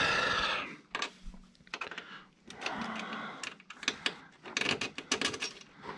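Handling noise from assembling the frame of an Elegoo Neptune 3 MAX 3D printer: scattered clicks, knocks and scrapes as the gantry and its screws are worked into line, busiest in the second half. A man's drawn-out vocal note trails off at the very start.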